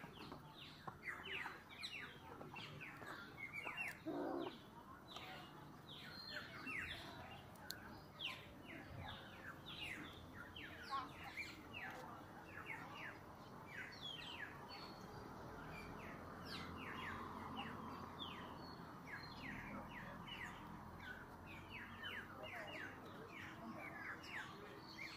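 Many small birds chirping in the surrounding forest: a constant chatter of short, quick, downward chirps, several a second.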